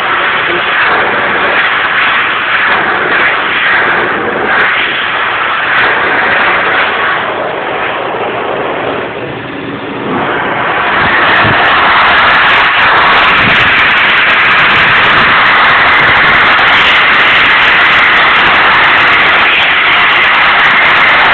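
Excel Xlerator high-speed electric hand dryer blowing: a very loud, steady rush of air. It dips briefly about nine seconds in, then comes back louder and runs steady.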